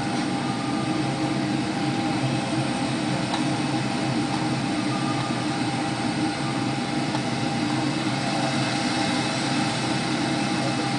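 Steady jet airliner cabin noise during final approach: the even rushing of engines and airflow, with a few faint steady tones through it.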